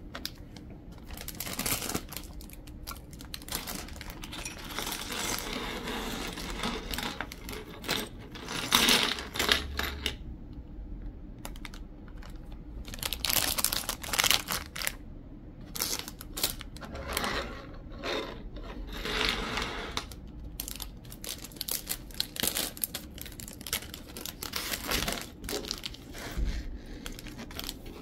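Loose Lego bricks clattering and clicking against each other and the tabletop, with a clear plastic bag rustling and crinkling as the pieces are tipped out and moved about.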